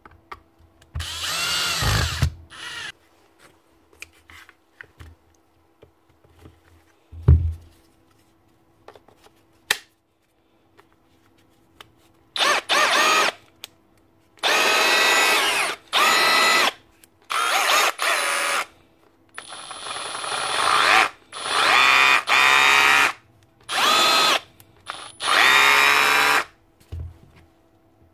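Milwaukee M12 CH SDS hammer drill, its piston freshly greased and fitted with a new O-ring, test-run with no bit in a string of short trigger pulls. There are about eight runs of one to two seconds each, some speeding up as the trigger is squeezed, with a brief run and a knock earlier on.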